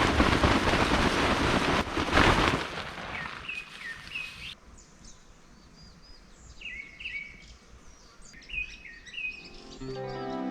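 Small birds chirping and calling in short repeated phrases. For the first four seconds a loud rushing noise covers them, then cuts off suddenly. Music fades in near the end.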